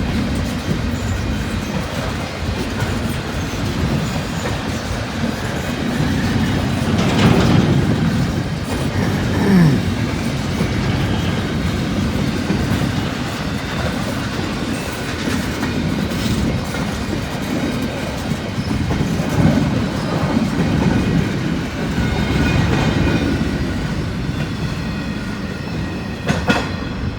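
Long CSX intermodal freight train's cars running past at speed, a steady noise of steel wheels on the rails, with a short falling squeal about ten seconds in and a sharp knock near the end.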